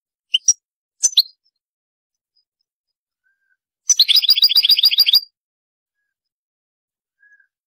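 European goldfinch singing: two short high chirps in the first second or so, then, about four seconds in, a fast trill of about ten rapid notes lasting just over a second.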